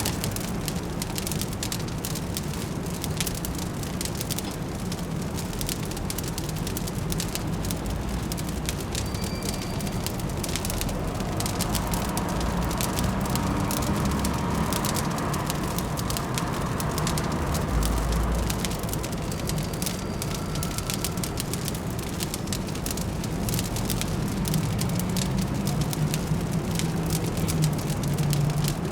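Fire crackling with a constant patter of small snaps, over a steady low hum of distant city traffic.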